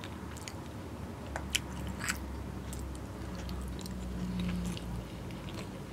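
Close-miked chewing and mouth sounds of a person eating a spoonful of soft food, with scattered short wet clicks over a low steady hum.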